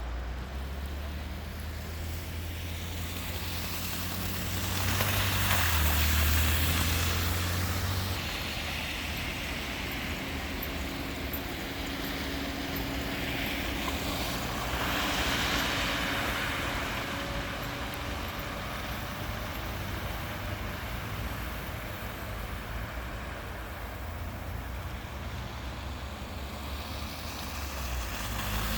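Road traffic: a low steady rumble, with vehicles passing by twice, the first about six seconds in and the second around fifteen seconds in.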